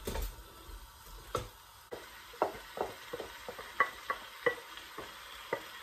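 Wooden spoon scraping cooked meat out of a plastic bowl into a metal cooking pot, with a string of irregular knocks and clicks as the spoon and the meat hit the pot, some ringing briefly.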